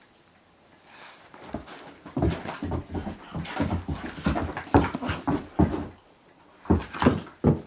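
A dog whimpering in a quick run of short sounds. It starts about two seconds in, pauses briefly, and gives a few more near the end.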